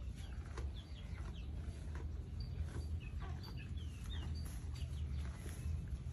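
Birds and chickens calling: many short, high, falling chirps and peeps scattered throughout, over a steady low rumble.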